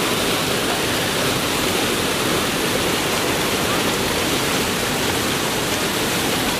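Steady rushing of water, an even hiss with no breaks or strokes.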